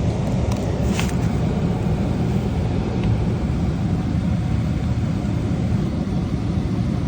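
A steady low rumble, with faint clicks about a second and three seconds in.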